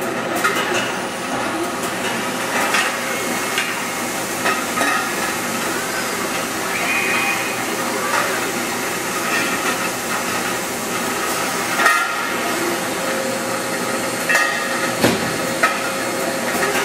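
Factory-floor noise from a robotic wheel-loading cell and its CNC machinery: a steady din of running machines with scattered metallic clanks and knocks, the loudest about twelve seconds in, and a few short hisses.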